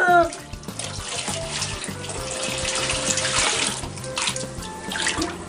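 Bathwater sloshing and being poured from a stainless steel bowl over a cat in a tub, heaviest about two and a half to three and a half seconds in. Right at the start the tail of the cat's meow cuts off.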